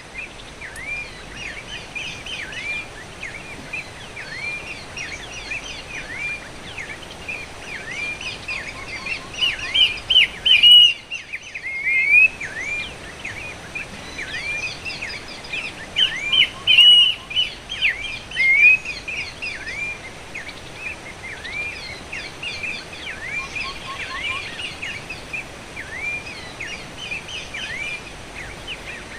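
Horsfield's babbler (pelanduk semak) giving its salakan call: a long run of short hooked whistles, two or three a second, over a steady hiss. The calls are loudest about ten and seventeen seconds in. This is the call used as lure audio for trapping the bird.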